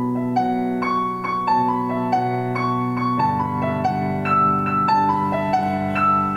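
Background piano music: a melody of single notes stepping over held low chords, the chord changing about halfway through.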